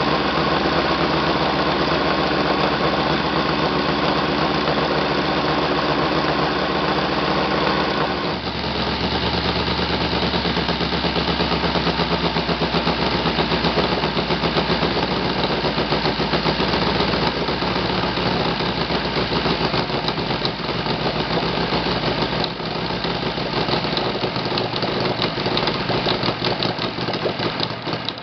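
ASP FS400 AR five-cylinder four-stroke radial glow engine running with its propeller, loud and even. About eight seconds in it drops abruptly to a lower speed with a slight pulsing beat and keeps running smoothly.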